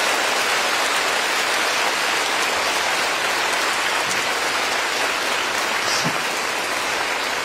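An audience applauding: many hands clapping together in a dense, sustained wash that eases off slightly near the end.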